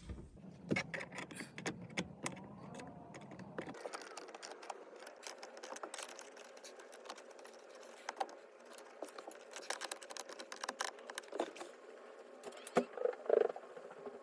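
Irregular small metallic clicks, taps and scrapes of a flathead screwdriver being worked into the pin holes of a steering wheel to pry out the retaining pins, with a cluster of louder clicks near the end.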